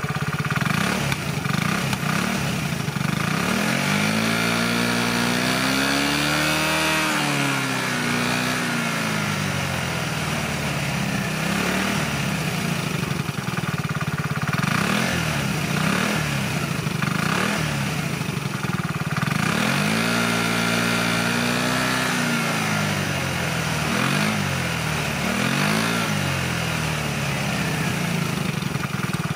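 Piaggio X8 125 scooter's single-cylinder four-stroke engine running through a Tecnigas 4SCOOT aftermarket exhaust. It idles and is revved up and back down twice in long swells, about a fifth and two-thirds of the way in, then given a few quick throttle blips.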